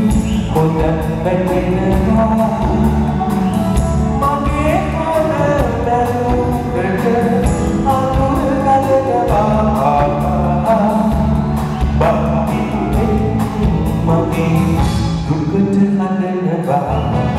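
Live band music: a man singing into a microphone over acoustic guitar, electric bass and percussion, with a steady beat. The low notes drop out briefly near the end.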